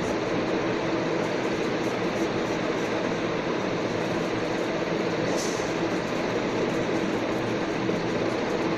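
Steady mechanical hum with an even rushing noise and one unchanging tone under it, and a short hiss about five and a half seconds in.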